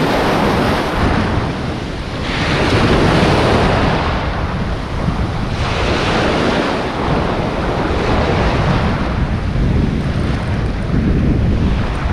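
Sea surf breaking and washing up the beach around the listener's feet, surging every few seconds, with wind buffeting the microphone.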